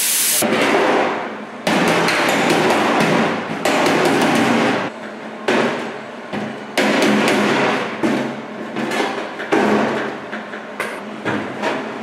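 Body hammer striking a steel car door skin in quick runs of blows, with short pauses between the runs.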